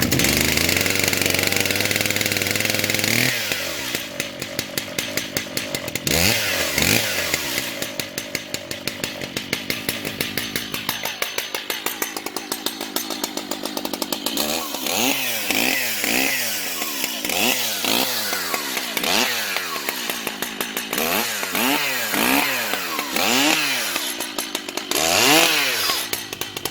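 Stihl MS880 121 cc two-stroke chainsaw running. It is held at high revs for the first few seconds, then revved up and down over and over, about once a second in the second half.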